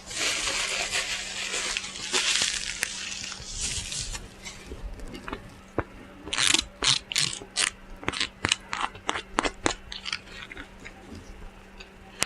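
Plastic and cardboard food containers being handled: rustling for the first few seconds, then from about six seconds a quick run of sharp crackling clicks.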